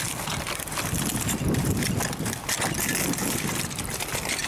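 Wind rumbling on the microphone outdoors, with scattered crunches of boots on broken concrete rubble.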